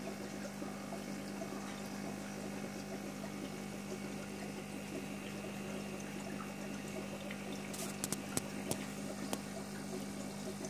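Steady hum of an aquarium pump with water trickling, and a few short clicks near the end.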